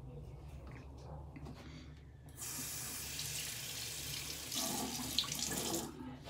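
Tap water running into a sink, starting suddenly about two and a half seconds in, splashing more heavily for the last second or so, then shutting off just before the end.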